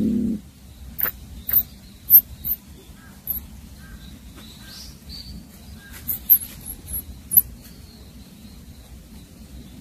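A mouse squeaking as a cat plays with it: a string of short, very high-pitched squeaks in two clusters, one in the first few seconds and one in the second half. A low, drawn-out cat vocalization cuts off about half a second in.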